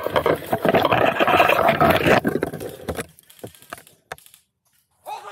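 Close rustling and scraping noise on the microphone, fading about three seconds in to a few faint clicks and a brief gap of silence.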